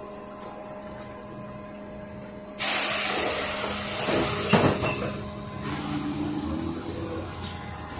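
Compressed air hissing from the LiAZ-5280 trolleybus's pneumatic system, starting suddenly about two and a half seconds in over a low steady hum, loud for a couple of seconds, then easing off and carrying on more softly.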